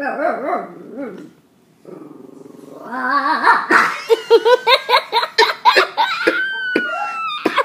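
Pekingese dog barking in a strange, strained way: a few odd yelps, a drawn-out buzzing sound, then a fast run of yips with a long falling whine near the end. People laugh along with it.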